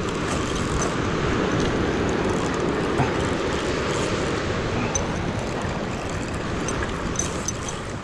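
Spinning reel on a surfcasting rod cranked steadily to wind in a hooked fish, a continuous rough noise.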